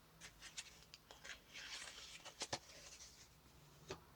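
Faint scattered clicks and a brief soft rustle of small craft items being handled, with a couple of sharper ticks about two and a half seconds in and again near the end.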